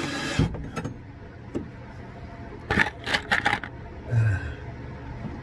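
A quick run of sharp metallic clicks and rattles about three seconds in, from small hardware such as hinge parts, screws or the drill being handled while the hinge is mounted. A short low sound follows a second later. The drill is not running.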